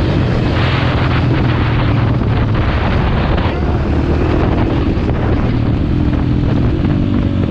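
KTM supermoto motorcycle engine running under way, with wind rushing over the microphone; the wind noise is strongest in the first few seconds.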